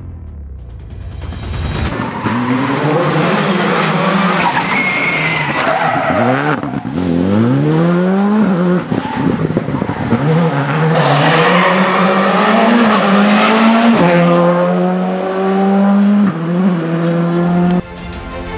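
Rally car engine revving hard on a tarmac stage, its revs climbing and dropping again and again as it shifts gear, brakes and accelerates, with tyre squeal. The sound cuts off sharply near the end.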